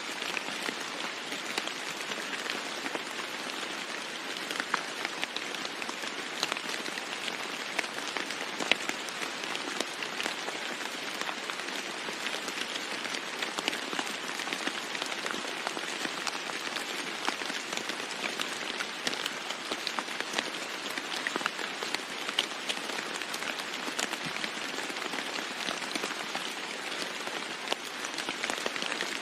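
Steady rain falling on a roof: an even hiss of rain with many sharp, irregular drop ticks on top, with no thunder.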